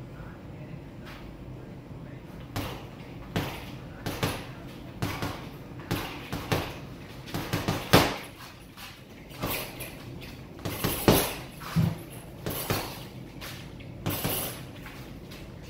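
Boxing gloves punching a 100 lb sand-filled heavy bag: a string of sharp thuds in quick combinations, starting a couple of seconds in, with the hardest blows about halfway through.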